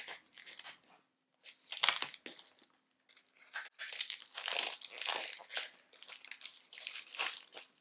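Wrapping on a boxed tarot deck crinkling and tearing as it is unwrapped by hand: a few short bursts of rustling with quiet gaps, then steadier crinkling from about halfway through.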